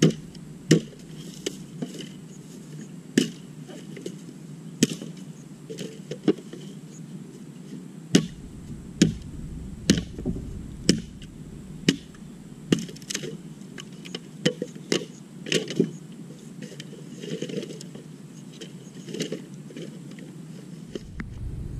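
Machete chopping through dry woody stalks, giving sharp cracking strikes at an uneven pace of roughly one every second or two. Near the end the chops thin out into a softer rustle and clatter as the cut sticks are handled.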